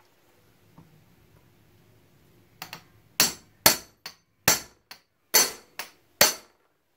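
Hammer striking a flat-blade screwdriver used as a chisel on a pin of a motorcycle drive chain: about ten sharp, ringing metal-on-metal blows at roughly two a second, starting a little over two seconds in. The pin head is being chiselled off to cut the stock 150 cc chain, which is very hard to chisel.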